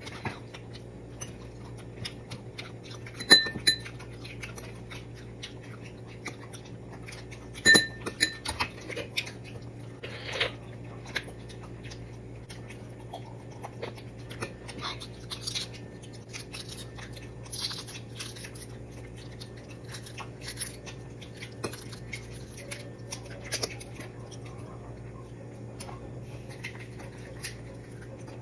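Eating sounds: a metal spoon clinking sharply against a ceramic plate twice, about three and eight seconds in, then scattered small clicks and chewing while balut is eaten. A steady low hum runs underneath.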